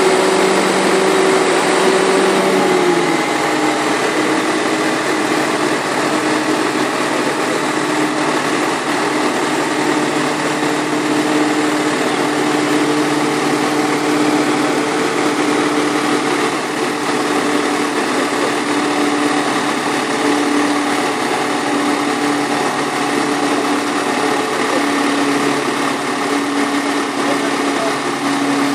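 Tractor engine running steadily; its note drops a step about three seconds in, then holds at the lower speed.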